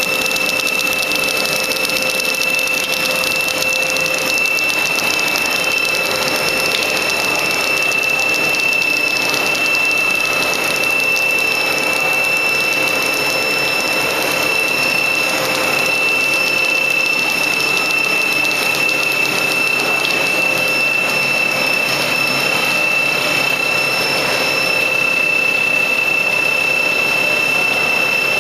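Plastic sheet making machine running steadily: a constant high-pitched whine over even mechanical noise, with no change in speed.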